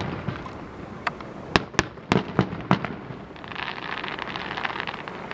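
Aerial fireworks shells bursting: about seven sharp, unevenly spaced bangs over the first three seconds, then about two seconds of dense crackling.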